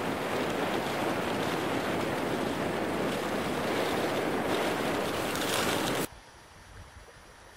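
Steady rushing noise of a downhill ski run: wind buffeting the microphone and skis sliding over snow. It stops abruptly about six seconds in, leaving a faint hiss.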